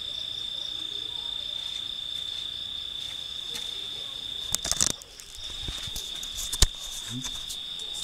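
Steady high-pitched trill of night insects. A cluster of sharp clicks and knocks comes about halfway through, and a single sharp click near the end.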